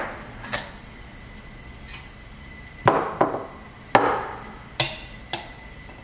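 About six sharp clinks and knocks of a stainless steel milk pitcher and a cup being handled and set down after steaming milk, each with a brief metallic ring; the two loudest come about three and four seconds in.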